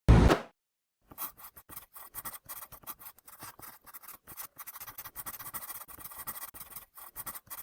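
A short thump, then a run of rapid, irregular scratching or rubbing noises.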